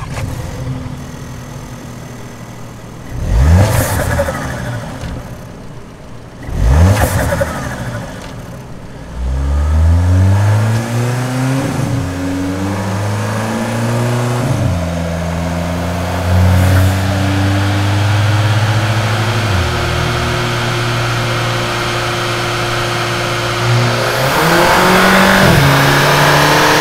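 2018 VW Polo GTI's 2.0 TSI turbocharged four-cylinder engine running on a chassis dynamometer: two quick throttle blips, then the engine revs up through a few gear changes, holds a steady speed for several seconds, drops back, and rises again near the end.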